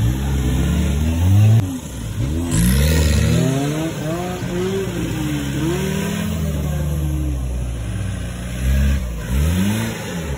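Off-road competition vehicle's engine being revved again and again, its pitch rising and falling with each blip of the throttle.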